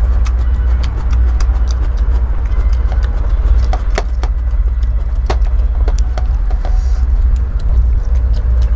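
Close-up chewing of raw bitter melon: scattered crunches and mouth clicks. Under it runs a steady low rumble, the loudest thing throughout.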